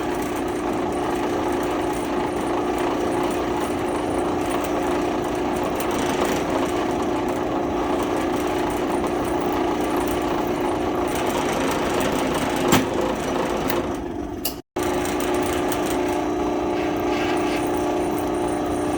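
Drill press motor running steadily at a slow spindle speed while a center drill cuts a pilot hole, with a sharp tick about two-thirds through and a brief cut-out of the sound shortly after.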